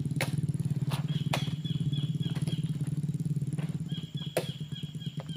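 Vehicle engine idling steadily with a fast pulsing low rumble that eases slightly about four seconds in. A few sharp knocks and runs of quick high chirps sound over it.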